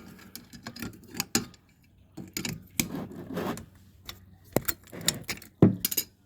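Scattered metallic clinks and knocks of tools and a socket being handled against a small engine's cylinder head, without the impact wrench running; the sharpest knocks come near the end.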